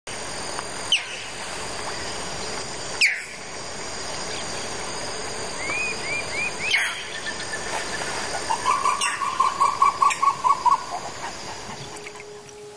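Tropical wetland ambience: a steady high drone of insects with several bird calls. Two loud, sharp calls sweep down in pitch about one and three seconds in, a few short chirps follow near six seconds, and a rapid run of about ten repeated notes comes in about nine seconds in.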